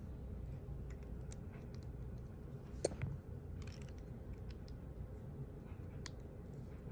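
Faint scattered clicks of plastic LEGO bricks being handled and pressed together during a build, the loudest about three seconds in, over a low steady hum.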